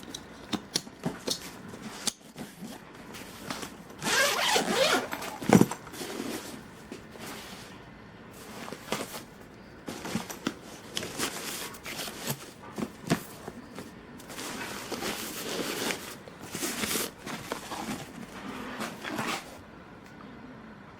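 A tent being handled: a zipper pulled open or shut, with nylon fabric rustling and scattered clicks and knocks. The loudest stretch, a long rasp ending in a sharp knock, comes about four to five seconds in.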